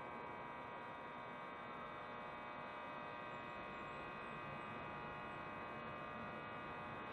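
Korail 8200 series electric locomotive standing with its power on, giving off a faint, steady electric hum with several high, even tones.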